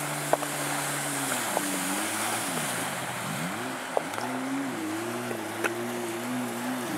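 A two-person jet ski's 700cc engine running steadily at speed. About a second in the throttle eases, and the pitch drops and then wavers up and down as the rider slows and turns, over a hiss of spray.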